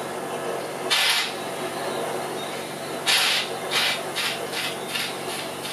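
A colonoscope's insertion tube rubbing and scraping as it is worked through a gloved hand into a colon training model. There is one stroke about a second in, a louder one about three seconds in, then a run of short quick strokes, roughly three a second, over a steady background hiss.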